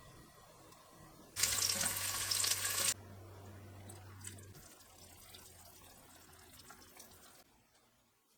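Kitchen tap turned on, water running into the sink for about a second and a half, then shut off abruptly. Fainter splashing and handling sounds follow.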